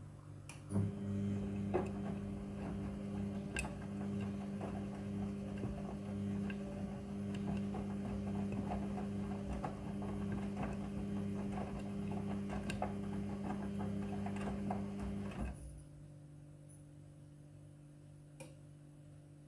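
Midea front-loading washing machine running, its motor turning the drum with a steady hum and light clicking and rattling; the motor stops suddenly about 15 seconds in, leaving a faint hum.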